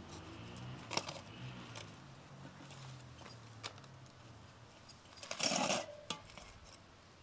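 A metal spoon clinking and scraping against a steel cooking pot and plate as rice is dished out, a few light clinks in all. About five seconds in, a louder crinkling rustle of aluminium foil as a foil-wrapped fish is lifted from the grill.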